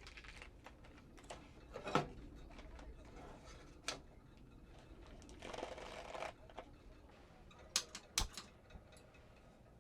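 Scattered light knocks and clicks of small objects being handled and set down, with a short rustle about halfway through.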